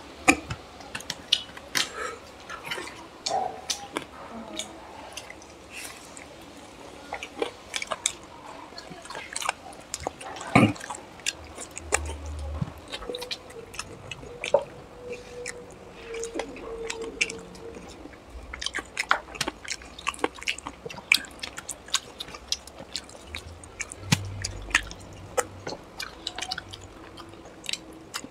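Close-miked eating: chewing and lip-smacking on spicy chicken curry and rice, with the wet squish of fingers mixing rice into curry, heard as many scattered short smacks and clicks. A few soft low thumps come in around the middle and again near the end.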